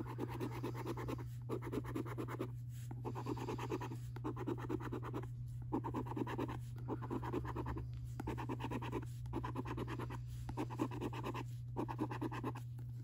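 A coin scratching the scratch-off coating from a lottery scratchcard, in repeated strokes that come in runs of about a second, each broken by a short pause.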